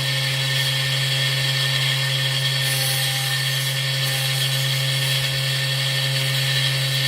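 Small electric drill running at a steady speed, used to enlarge a hole in brass rod, its motor giving a steady hum with a higher whine above it.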